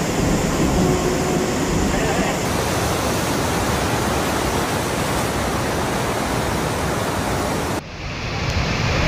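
Floodwater in a swollen mountain river rushing fast and steadily, a dense even sound of churning water. It cuts off suddenly near the end and comes back quieter.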